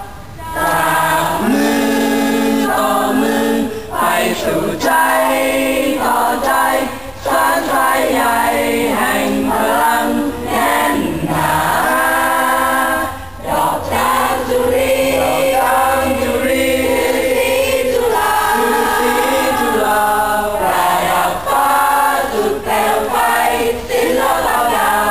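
A choir singing a song, many voices holding notes together, with a brief break about halfway through.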